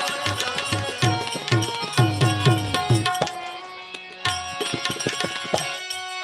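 Instrumental interlude of a Gujarati devotional bhajan: tabla playing a rhythmic pattern, the bass drum's strokes bending in pitch, under a steady held melody note. The drumming thins out for about a second past the middle, then picks up again.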